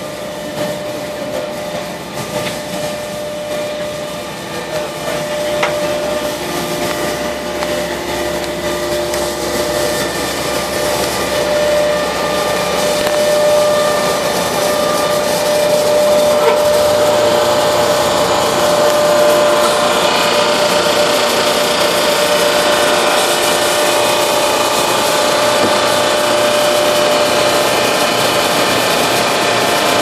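Pellenc Selectiv' Process Vision optical grape destemmer-sorter and its feed conveyor running: a steady mechanical hum with a held whining tone, getting louder about halfway through.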